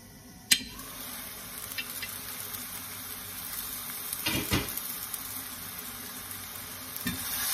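Glass pan lid lifted off with a sharp clink about half a second in, letting out the steady sizzle of cubed pork neck frying as it browns. There are a few knocks around four seconds in, and the sizzle grows louder with a wooden spoon stirring near the end.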